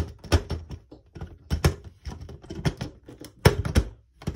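Plastic Lego boat model being handled and moved about on a table: a run of irregular clicks and knocks of plastic pieces, loudest in a short cluster near the end.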